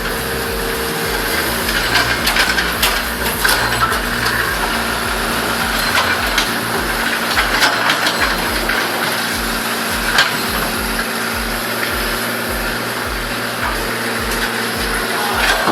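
Heavy machine engine running steadily during demolition work, with sharp knocks and cracks now and then, as of concrete being broken. A regular low pulsing runs underneath.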